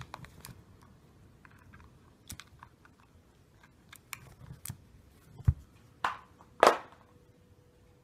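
Hand brush scraping and clicking against couch upholstery as a white cockatoo grabs and fights with it: a run of light clicks and scratches, a dull thump about five and a half seconds in, and two louder scrapes just after.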